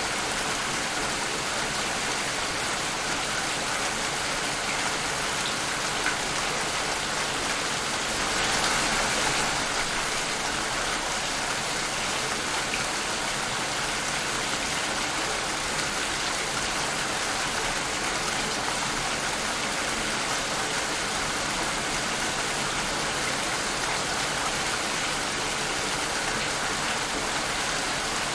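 Steady rain falling, an even dense hiss of drops, swelling briefly about eight seconds in.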